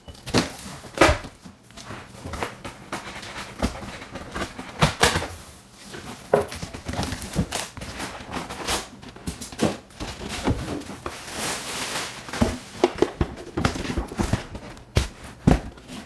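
A large cardboard box being opened and unpacked: packing tape slit with scissors, cardboard flaps and foam packing rustling, with scattered irregular knocks and thuds as the contents are handled.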